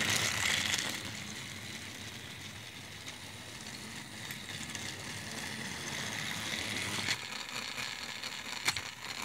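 Small battery-powered motor of a toy Thomas engine running steadily as it pulls its cars around plastic toy track, with a few sharp clicks near the end.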